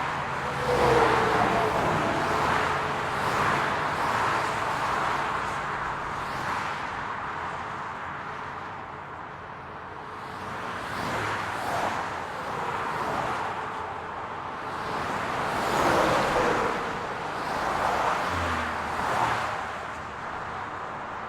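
City road traffic: a steady wash of tyre and engine noise, with cars passing one after another. Each pass swells and fades over a couple of seconds, the strongest around a second in and again past the middle.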